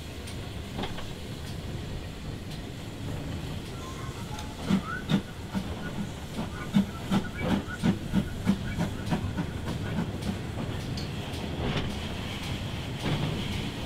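Steam-worked goods train on the move, with the banking engine, the GWR prairie tank 5521 running as L.150, pushing close behind: a steady hiss and rumble. In the middle there is a run of regular thuds, about three a second.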